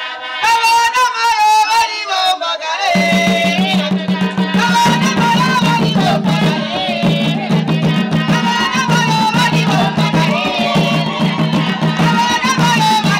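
Women singing a traditional chilanga mulilo song with hand claps. Tall wooden hand drums come in about three seconds in and keep a steady, repeating beat under the singing.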